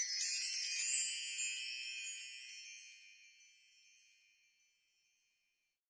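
A shimmering chime sound effect: a cascade of high, bell-like tinkles that dies away over about four seconds.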